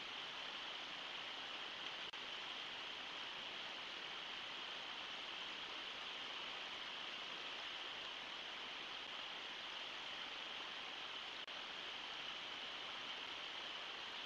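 Steady rushing of water pouring over a low river waterfall, picked up by a wildlife livecam's microphone.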